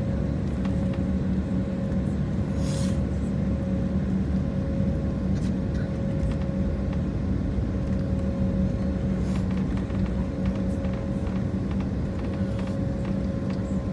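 Jet airliner engines running steadily at low thrust while taxiing, heard inside the cabin: a constant rumble with a held hum, faint clicks now and then, and a short hiss about three seconds in.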